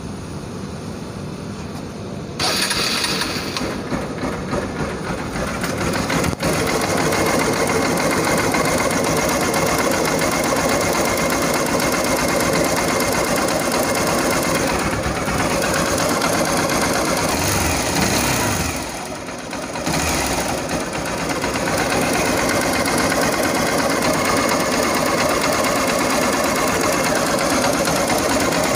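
Hero Xtreme 200S's single-cylinder engine running at idle, picked up close to the cylinder head. It gets louder a couple of seconds in and dips briefly about two-thirds of the way through.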